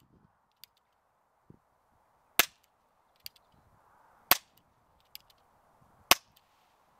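Baikal MP-654K Makarov CO2 BB air pistol firing three shots, about two seconds apart, with fainter clicks between the shots.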